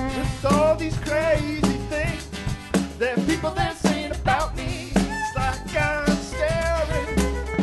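Live band music: a violin plays a lively melody with vibrato over a steady drum-kit beat, about two beats a second.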